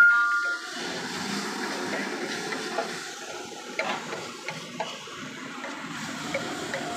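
A metal spatula stirs and scrapes chopped onion and masala peanuts across a flat iron griddle, making scattered light scrapes over a steady hiss. The tail of a bell-like chime fades out in the first half second.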